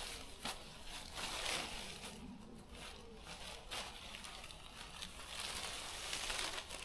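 Rustling and a few light clicks and knocks of a tent being handled and pitched, swelling about a second in and again near the end.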